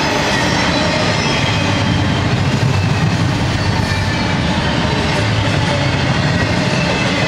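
Intermodal freight train of double-stack container and trailer cars passing close at speed: a loud, steady rumble of steel wheels on rail.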